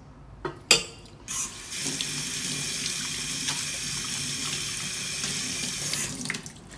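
Two quick knocks, the second one loud, then water running from a tap into a sink for about five seconds before it is shut off.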